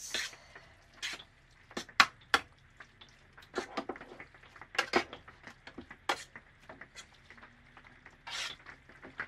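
Fork stirring a wet shredded chicken, green chile and cheese mixture in a metal baking pan, with irregular clinks and scrapes of the fork against the pan, the sharpest about two seconds in.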